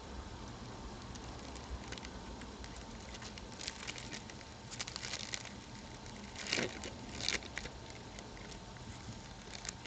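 Trading card packs and cards being handled, with bursts of crinkling and rustling mostly in the middle, over a steady low background hum.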